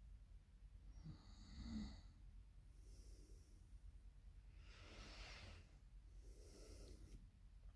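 Faint breathing of a sleeping woman, with a short low snore about two seconds in and a long noisy breath around five seconds.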